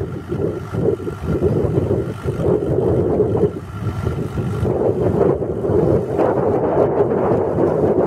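Farm tractor engine running steadily as it pulls a plough through the soil, growing a little louder over the first couple of seconds.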